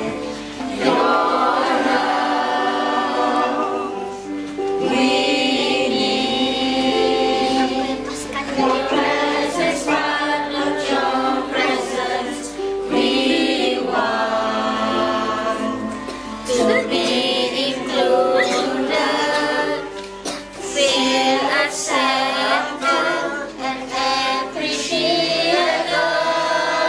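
A group of young people and adults singing a song together in a practice rehearsal, voices holding and changing notes throughout.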